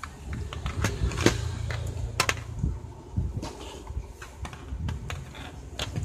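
Scattered plastic clicks and knocks from an external slim DVD-ROM drive and its USB cable being handled on a wooden desk, over a low rumble of handling noise.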